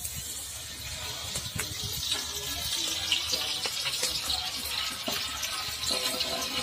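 Oil heating in a large cooking pot, a steady sizzling hiss with scattered small crackles.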